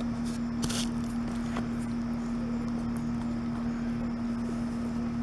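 A steady, constant hum with a few faint, brief scrapes of a popsicle stick stirring water putty powder and water in a small container.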